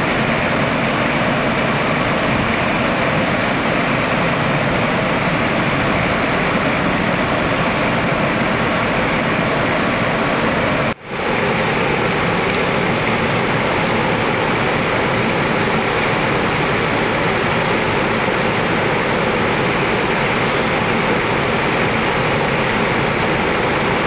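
Steady, loud rushing noise of engine-driven rescue equipment running at a crash scene, with no distinct beat. It drops out for a moment at an edit about 11 seconds in, then carries on the same.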